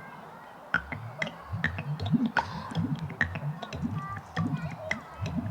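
Low, pulsing music with many sharp clicks scattered over it.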